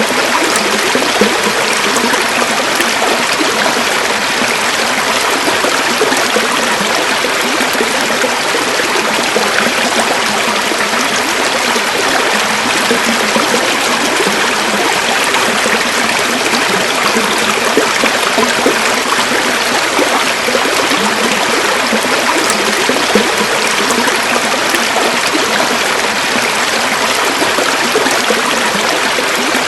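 A river flowing steadily over stones, a continuous rushing and splashing with no breaks.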